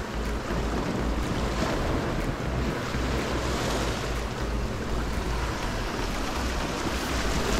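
Wind buffeting the microphone in irregular low gusts over the steady wash of sea waves.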